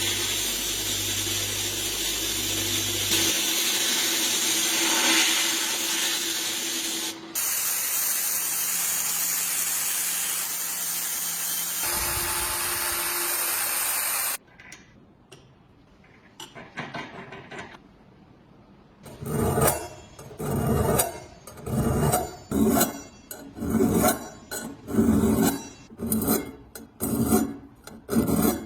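A loud, steady hiss from a workshop tool runs for about fourteen seconds, breaking off once briefly. After a few seconds of quieter scraping, a hand file rasps back and forth in even strokes about once a second.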